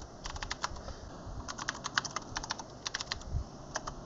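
Typing on a computer keyboard: several quick bursts of keystrokes with short pauses between them.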